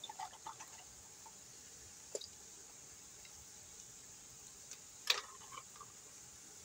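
Faint wet squishing and small clicks as watered-down barbecue sauce is squeezed out of a plastic bag, with one brief tick about two seconds in and a sharper click about five seconds in.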